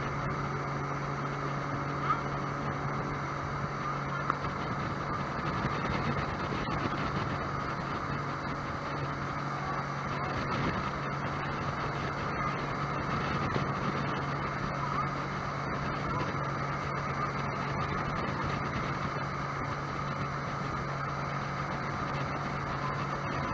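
Sea-Doo boat's engine running steadily as it cruises, a constant low hum under an even rush of water and air noise, with a couple of faint knocks early on.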